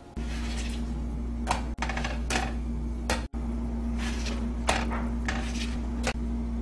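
A spatula knocking and scraping against a nonstick frying pan while pancakes are lifted and turned: about nine short, separate clacks. A steady low hum runs underneath.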